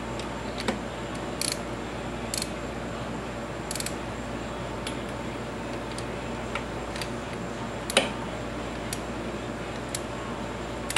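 Scattered light metallic clicks and ticks from a hand wrench tightening the camshaft cap bolts to torque, the sharpest click about eight seconds in, over a steady background hum.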